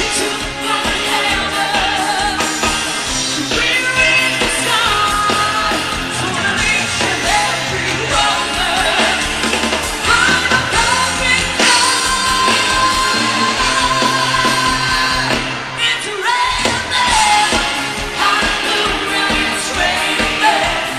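Live pop-rock band with a singer: a steady drum beat under held sung notes. The beat breaks off for a moment about three-quarters of the way through.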